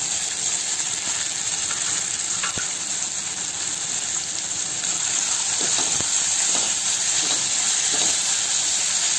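Onions, dried red chillies and curry leaves sizzling steadily in hot oil in a kadhai, with freshly added chopped tomatoes. A couple of light clicks, and in the second half a plastic spatula stirring through the pan.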